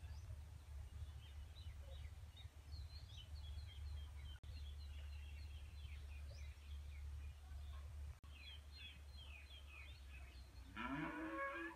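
Small birds chirping over and over, faint, over a low steady hum. Near the end an animal gives one low call of about a second that rises in pitch.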